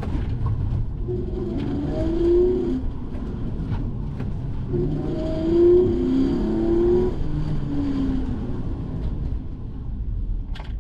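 Hyundai Genesis Coupe's 3.8-litre V6 heard from inside the car under hard driving, revving up and easing off twice, over a steady low road rumble.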